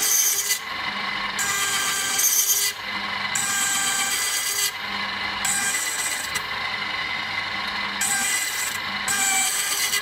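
Key cutting machine running, its cutter rasping into a mortice key blank in repeated short cuts of about a second each, with short pauses between them as the blank is cut down bit by bit.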